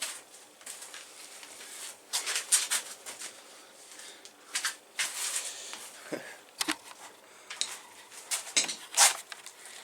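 Irregular scrapes and light clicks and knocks of hand work at a workbench, with several short scraping strokes, the loudest about two, five and nine seconds in.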